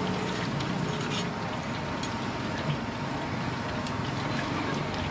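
Hot oil sizzling steadily as Hakka fermented rice cakes (jiao ban) deep-fry, with a few faint crackles, over a steady low hum.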